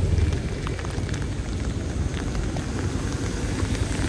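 Steady rain, with scattered drops ticking close by and a low rumble of wind on the microphone.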